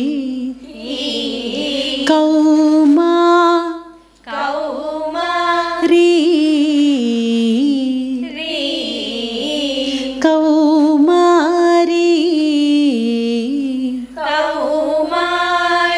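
Women's voices singing a Telugu devotional song together without instruments, drawing out long held syllables with wavering, ornamented slides between notes (gamakas) in Shankarabharanam raga. The phrases are broken by short breaths, the clearest about four seconds in.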